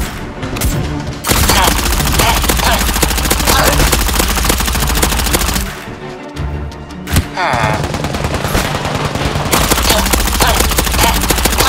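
Gel blaster firing full-auto in two long rapid bursts over background music. The first burst starts about a second in and lasts about four seconds; the second starts near the end.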